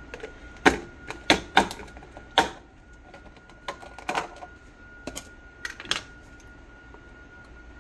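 Plastic food-storage containers and their snap-on lids clacking against each other and being set down on a glass-top stove. There is a string of sharp clacks in the first few seconds and more around four to six seconds in, over a faint steady high hum.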